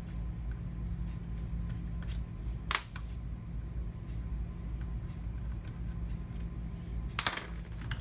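Small metallic clicks of an Allen key and tiny screws being worked out of a tool's housing: one sharp click a little under three seconds in and a short run of clicks near the end, over a steady low hum.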